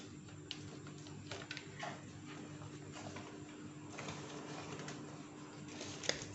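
Hands working at a motorcycle's plastic front fairing, pulling a paper template off beside the newly fitted winglet: faint rustling and small plastic clicks, with a sharper click near the end, over a steady low hum.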